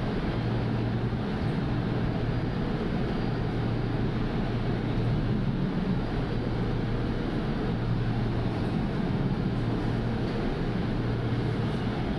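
Steady running noise of an LRT Line 2 train carriage in motion on the elevated track, a constant low rumble and hum heard from inside the car.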